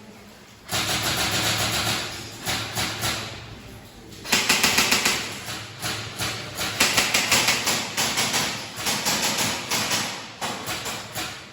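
Airsoft guns firing rapid automatic bursts, about half a dozen in a row, each a second or two long with short gaps between.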